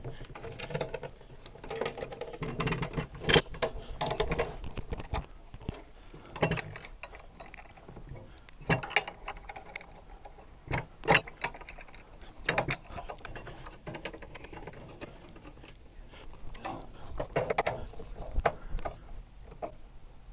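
Irregular metallic clicks, clinks and knocks of a mobile base kit's steel corner bracket and its bolts being handled, threaded in and tightened with a hand tool.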